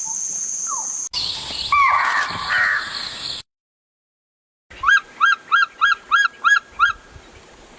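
Quick cuts between nature clips: a steady high-pitched buzz stops suddenly about a second in, followed by a short stretch of mixed calls. After a brief silence, a bird gives eight loud, harsh calls in quick succession, about four a second.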